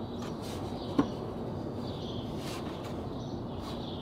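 Birds chirping over a steady background noise, with one sharp click about a second in.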